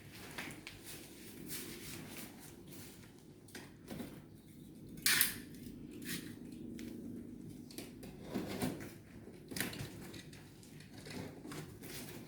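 Unpacking a television box by hand: scattered clicks, knocks and rustles of cardboard and packing material, with one louder, brief rasp about five seconds in.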